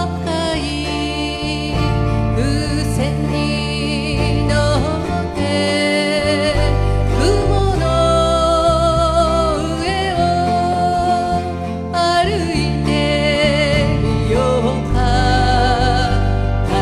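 Small acoustic folk band playing a slow song: a woman sings lead with vibrato over strummed acoustic guitars, a bass guitar and bongos.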